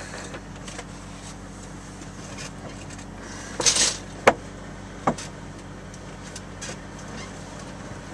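A heavy truck's engine running steadily at low revs, with a short hiss and two sharp knocks in the middle.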